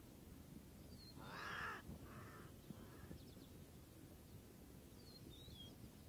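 An animal calls three times in quick succession, harsh and rasping, each call shorter and fainter than the last, over near silence. A few faint, high, thin bird chirps come just before the calls and again near the end.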